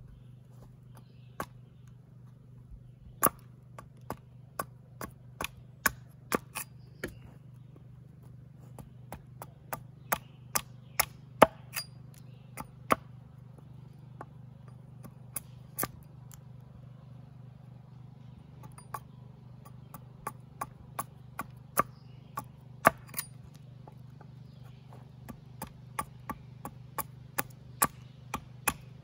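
Hatchet chopping into a wooden spoon blank: sharp, irregular chops, about one or two a second, in runs separated by short pauses.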